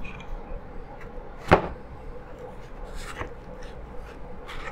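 Clicks and taps of hard plastic camera gear being handled: one sharp click about a second and a half in, then a few softer clicks later on.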